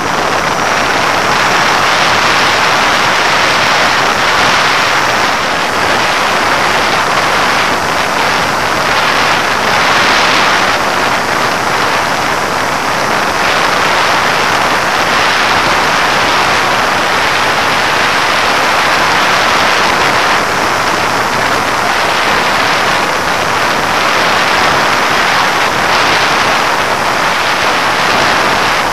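Steady loud rushing of airflow and propeller noise, heard through the onboard action camera's microphone on a model aircraft in flight.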